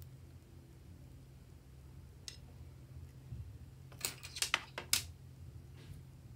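Sharp clicks and taps of small scissors and plastic lipstick tubes being handled: a single click, then a quick cluster of about six clicks between four and five seconds in, over a faint low hum.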